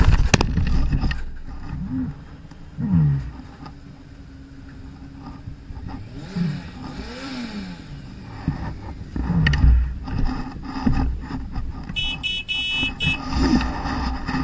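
Honda CB125F motorcycle crashing into a rocky roadside verge: a loud impact and scrape of bike and rider hitting the rocks at the start, then scattered knocks and scuffs of loose stones as the rider moves among them.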